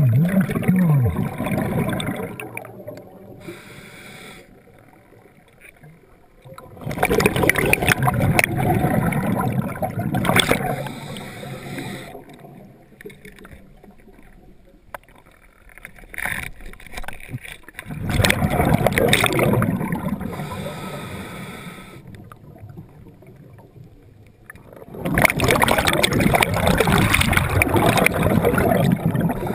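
Scuba diver's exhaled bubbles bubbling past the underwater camera in four bursts of a few seconds each, with quieter stretches between breaths.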